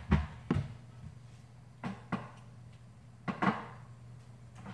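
Short knocks and clacks of kitchen items being handled on a countertop, about seven in all and mostly in pairs, over a faint steady low hum.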